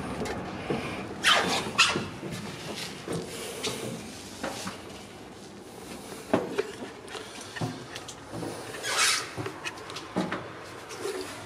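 Irregular footsteps, knocks and rustling from someone passing through a doorway and walking down a spiral staircase, with a few brief swishes of movement.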